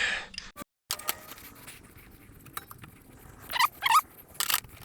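Light clinks and taps of metal tools and parts being handled, with two short squeaks about three and a half seconds in.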